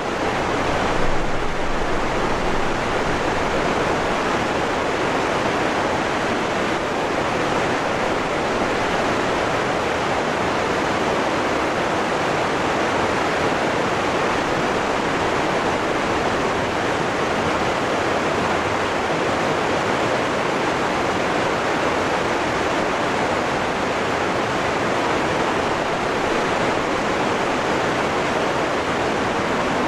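Waterfall rushing steadily, an even, unbroken wash of falling water.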